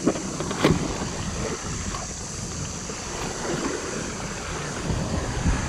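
Wind buffeting the microphone with a steady low rumble, and two sharp knocks within the first second.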